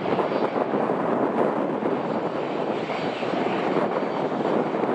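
Jet airliner engines running, a steady rush of noise with a faint high whine over it.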